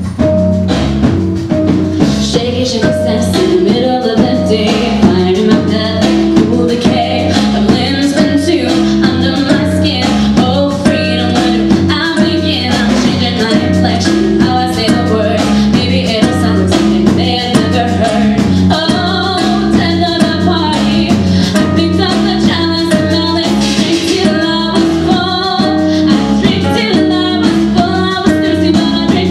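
Live band playing a song: a woman singing lead over guitar and drum kit.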